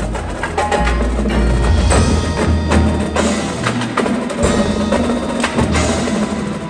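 Indoor percussion ensemble playing: marching drums with many sharp, rapid strikes over mallet keyboards and a held low bass.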